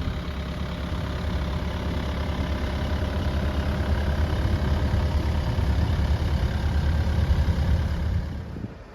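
Diesel engine of a Kubota KX080-3a 8-tonne excavator running steadily at idle, growing a little louder, then falling away sharply near the end.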